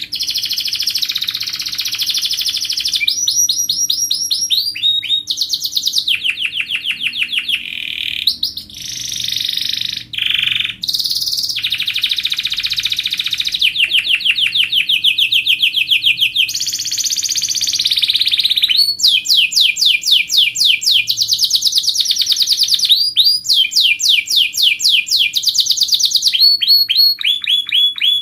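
Domestic canary singing a continuous song of rapid trills, each a fast run of repeated notes, switching to a new trill every second or two.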